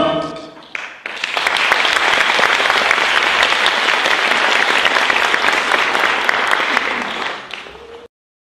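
A brief last note of music at the start, then an audience applauding steadily from about a second in. The applause fades and cuts off suddenly near the end.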